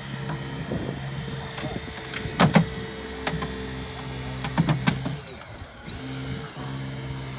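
Hydraulic rescue tool (jaws of life) running as it works a car door: a steady motor hum that stops a little after five seconds and starts again just before six. Loud sharp cracks of metal giving way come about two and a half seconds in and again near five seconds.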